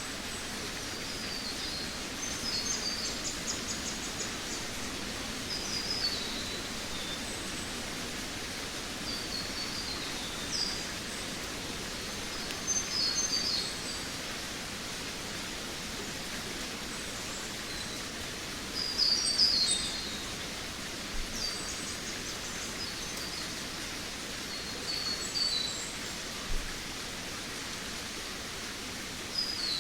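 Forest ambience: small songbirds singing short, high chirping and trilling phrases every few seconds over a steady, even background hiss, with the loudest burst of song just past the middle.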